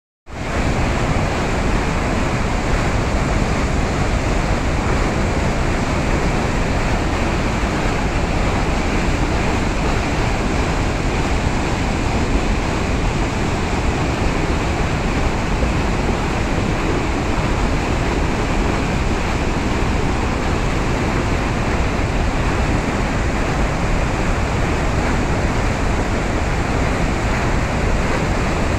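Floodwater pouring over a masonry dam's spillway crest and churning in white water below it: a loud, steady rush of water with deep rumble in it.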